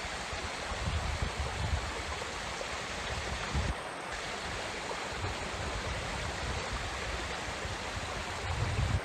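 Steady rush of water from a mountain waterfall and stream. Low rumbles of wind on the microphone come and go.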